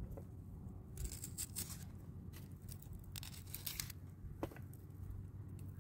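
Whole onions being pushed onto metal skewers over a metal tray: a few short crunching, scraping strokes, with one sharp click about four and a half seconds in.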